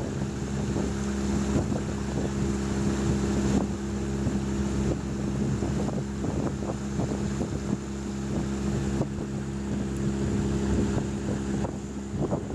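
Small boat motor pushing a canoe across calm water, running at a steady pitch, with wind buffeting the microphone.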